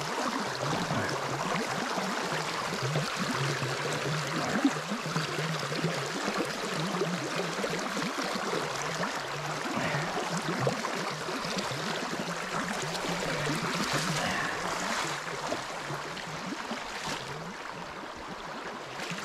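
Shallow creek water rushing over rocks in a riffle, a steady rush.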